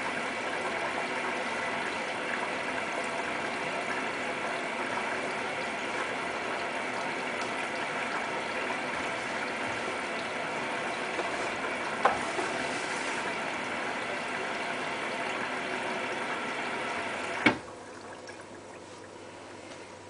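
Hotpoint Ultima WT960 washing machine running on a boil-wash cycle, a steady mechanical hum mixed with rushing water. A sharp click comes about three-quarters of the way through, after which the machine goes much quieter, leaving a low hum.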